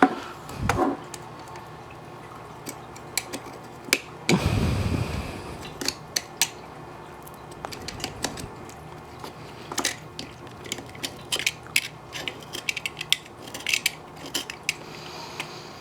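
A small hard tool scraping and tapping against a phone's back while old camera-glass adhesive is cleaned off: irregular light clicks and scrapes, with a louder rubbing rush about four seconds in.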